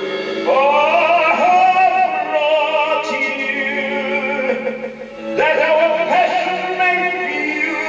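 Recorded operatic music: a high soprano voice sings a sustained line with wide vibrato over a held accompaniment note, breaking off briefly about five seconds in before coming back in.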